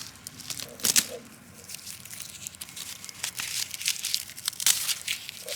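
Brittle, dry dead plant material being peeled and crumpled by hand: the outer layer of a dead stalk crackles and tears in irregular snaps, with the sharpest cracks about a second in and again near the end.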